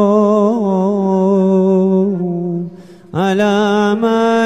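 A single voice chanting a Syriac qolo hymn unaccompanied: a long held note with light vibrato that stops about two seconds in, then after a brief pause a new held note begins.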